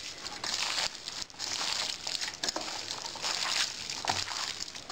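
Hands squeezing and turning raw chicken and pork pieces with chopped green onion, parsley and oil in a steel pot, mixing the marinade by hand: a squelching, rustling sound that comes in uneven swells.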